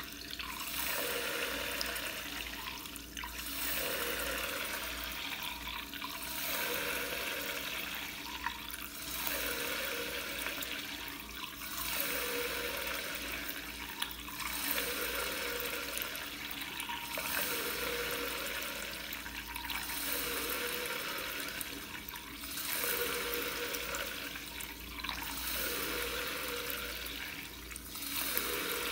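Tap water running in a thin steady stream into a sink basin by the drain, a continuous splashing rush that swells and eases about every two and a half seconds.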